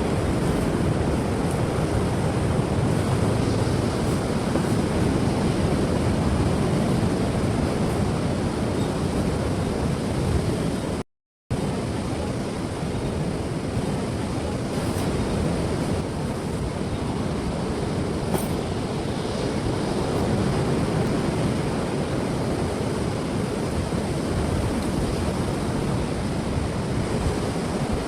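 Ocean surf washing steadily onto a beach, a continuous rushing noise. About eleven seconds in, the sound drops out to silence for half a second.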